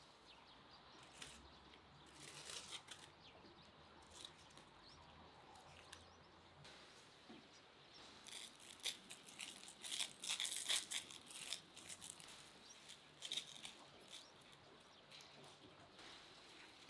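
Dry bay leaves and shredded cabbage rustling and crinkling as they are handled, in scattered crackly bursts that are busiest in the middle.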